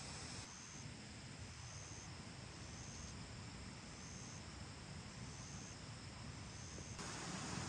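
Faint outdoor ambience with an insect giving a short high chirp about once a second. About seven seconds in, the steady rush of running water cuts in, louder.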